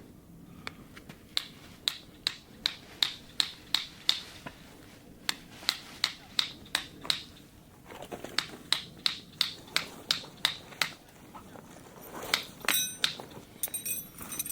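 A rapid run of sharp taps or clicks, about three a second, coming in several groups with short pauses between them. Near the end come a few brighter clinks that ring briefly.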